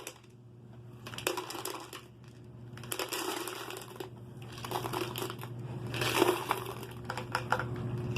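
Plastic crinkling and rustling in several short bursts with small clicks, as a plastic bottle rain gauge is handled.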